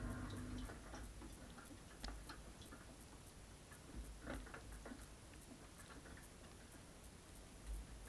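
Water dripping inside a Bosch dishwasher's tub while the spray arms are still: scattered faint drips and clicks over a low rumble from the machine, with a faint regular ticking about twice a second.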